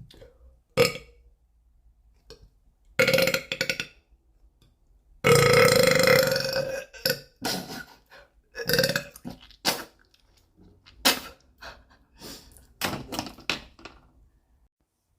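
A woman burping over and over, about a dozen burps of varying length. The longest and loudest, nearly two seconds long, comes about five seconds in, and shorter ones follow in quick succession.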